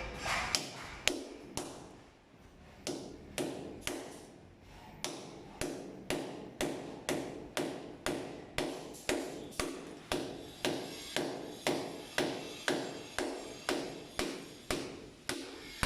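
Hammer blows struck at an even pace, about two a second, each with a short ring, pausing briefly about two seconds in.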